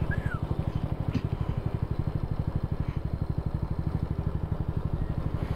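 Mondial SFC 50 cc moped engine running at low speed while riding, a steady, rapid, even pulsing.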